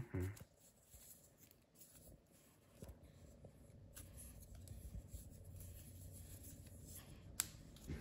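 Faint clicking and handling of plastic twist-snake puzzle segments being turned by hand, with one sharp click near the end.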